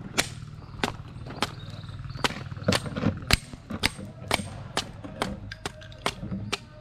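Machetes chopping wood: a run of sharp, irregular strikes, about two or three a second.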